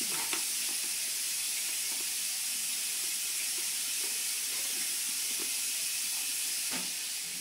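Peanut butter and banana sandwich deep-frying in a pan of hot oil: a steady, even sizzle.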